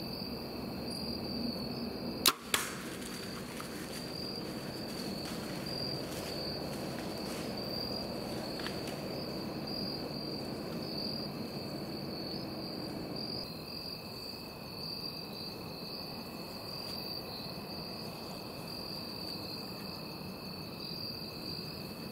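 A bow shot about two seconds in: a sharp crack of the bowstring firing the arrow, then a second sharp sound about a third of a second later. Crickets chirr steadily throughout.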